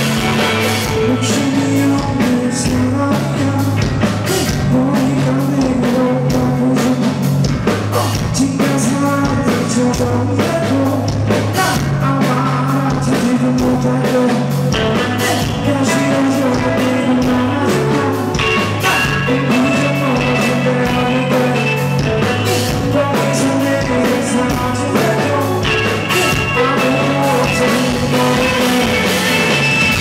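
Live indie rock band playing: electric guitars over a bass line and a drum kit, loud and continuous.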